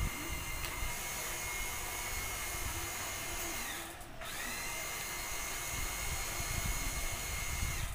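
Electric hoist winch motor running with a steady high whine while lifting tiles. A little under four seconds in it winds down, stops for a moment and winds back up to speed.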